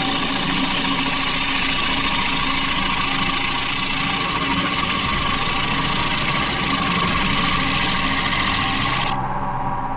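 Wood lathe running with a turning tool cutting into spinning wood: a steady hiss of cutting over the motor's hum. The cutting stops near the end, leaving only the lathe's hum.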